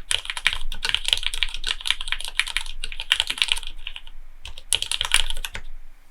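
Typing on a Sangeo60 gasket-mount custom mechanical keyboard with lubed Cherry MX Black linear switches. Fast, continuous keystrokes thin out about four seconds in, come back in one last quick run, and stop shortly before the end.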